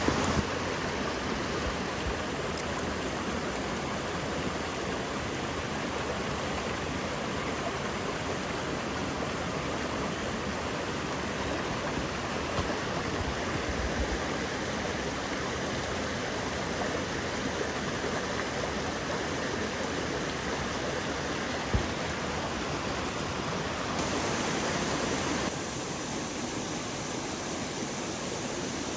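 Steady rush of a rocky mountain stream's flowing water. There is one brief knock a little past two-thirds of the way through, and the water is slightly quieter a few seconds before the end.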